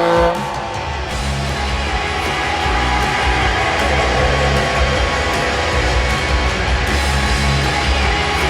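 Hockey goal horn cutting off just after the start, followed by a loud rock goal song with electric guitar over a heavy, steady beat.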